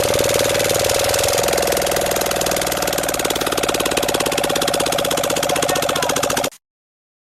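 A machine running steadily with a fast, even pulsing and a steady hum, cutting off suddenly near the end.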